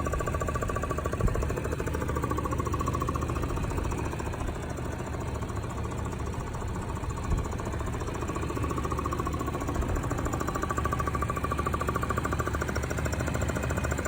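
Engine running with a rapid, steady thumping knock, heard after a chain guide replacement; the thumping is the fault being shown. A faint whine fades for a few seconds in the middle and then returns.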